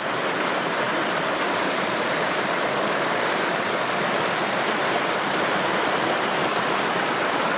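Steady rushing of a babbling creek, close by.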